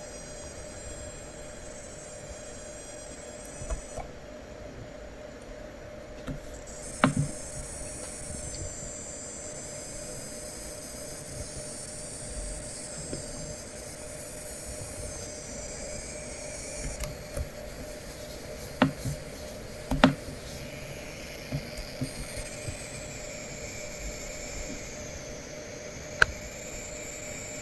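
Coil whine from the inductors of an ASUS ROG Zephyrus M16 (2023) gaming laptop under load: high thin tones that shift in pitch, over a steady lower hum. Several sharp clicks cut in along the way.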